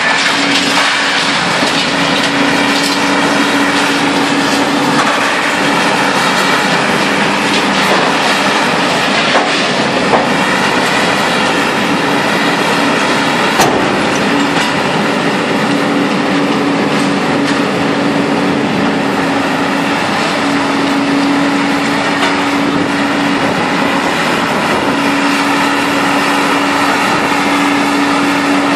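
A Bonfiglioli Squalo 2000 inclined scrap shear being loaded by a grab: heavy machinery running with a steady droning tone, while scrap metal clanks and rattles as it drops into the shear's box, with one sharp clank about halfway through.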